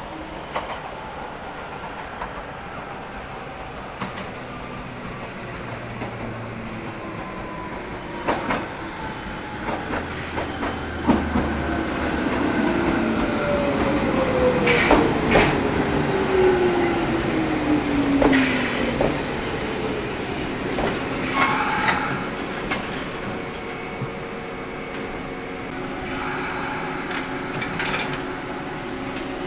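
Toyama Chiho Railway 14760 series electric train slowing down, the whine of its Toyo Denki TDK-8205A external-fan traction motors falling steadily in pitch over about ten seconds. Wheels clack over rail joints throughout, loudest near the middle as the train passes closest.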